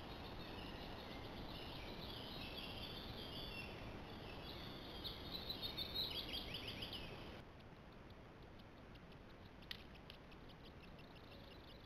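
Woodland birds chirping and singing over a steady hiss. About seven seconds in, the sound cuts to a quieter hiss with faint ticking and a single sharp click.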